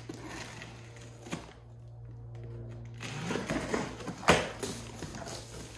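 A box cutter slicing along the packing tape of a cardboard box, soft scraping at first, then louder cardboard rustling and scraping, with one sharp crack about four seconds in.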